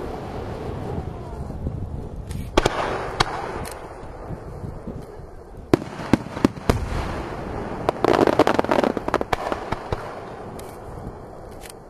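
Aerial firework shells bursting, with sharp booms at irregular intervals over rolling echo. A dense burst of crackle comes about eight seconds in.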